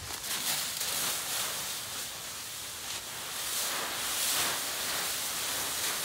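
Dry fallen leaves rustling and crunching in uneven swells as a dog runs through a leaf pile.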